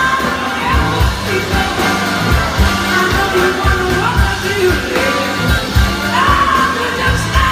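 Live blues band performance: singing over drums, bass and guitar, with notes sliding upward.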